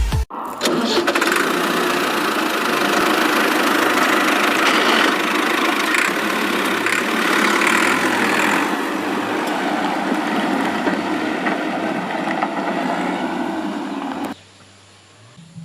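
Cement mixer running, a steady mechanical churning noise that stops abruptly near the end.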